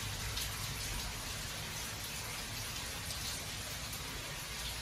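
Steady patter of water dripping and trickling in a wet underground coal mine gangway, over a low rumble.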